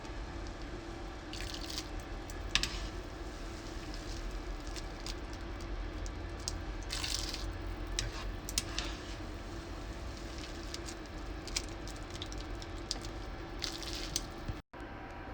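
Wet kitchen sounds over a steady hum: soft squishing and dripping with scattered light clicks and a few brief splashes of water.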